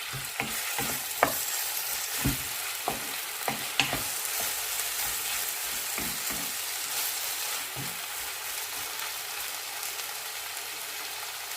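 Pork belly and tomatoes sautéing in a pan: steady sizzling, with a stirring utensil knocking and scraping against the pan, the knocks frequent during the first eight seconds or so and sparse after. The tomatoes are being cooked down until soft.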